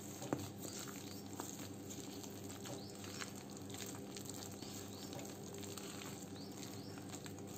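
A hand mixing thick, wet urad dal batter in a stainless steel bowl: faint, irregular squishing and patting, over a steady low hum.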